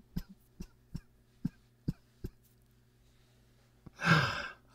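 A few soft breathy catches fading out, then a man's cough about four seconds in.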